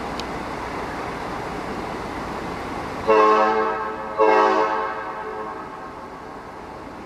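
A train whistle sounds two blasts about a second apart, starting about three seconds in; the second trails off more slowly. A steady rushing background noise runs underneath.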